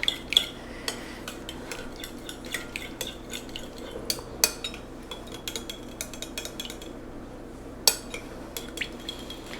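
A utensil stirring oil, syrup and salt in a bowl, clinking and tapping against the bowl in quick irregular small clicks, with a sharper knock about eight seconds in.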